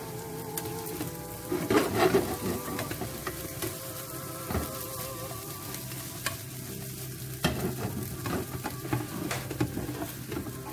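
Bread cubes frying in hot olive oil in a ceramic-coated frying pan, sizzling, while a plastic slotted spatula stirs and turns them, with scattered clicks and scrapes of the spatula against the pan. The busiest stirring comes about two seconds in.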